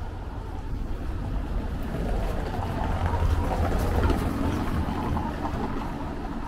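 A vehicle passing by on the street, a rumble that swells to a peak about halfway through and then fades.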